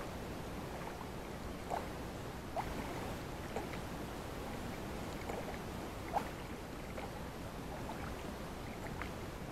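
Water lapping against a small rowing boat's hull as it moves slowly across a lake, over a steady low hiss, with a few faint short drips.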